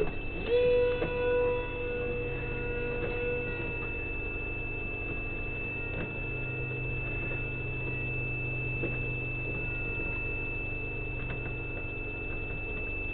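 Steady high-pitched electronic whine over a low hum from the ground station's electronics. A louder held tone sounds for about three seconds near the start.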